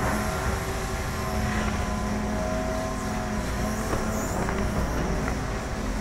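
Hitachi Zaxis 125W wheeled excavator running steadily while it lowers its bucket, with a few light knocks.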